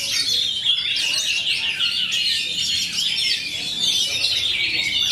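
Several oriental magpie-robins (kacer) singing at once, a dense, unbroken tangle of quick chirps and whistles.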